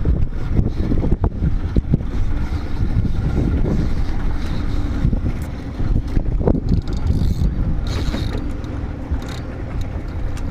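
Wind buffeting the microphone on a small open boat at sea, with water lapping and scattered short knocks.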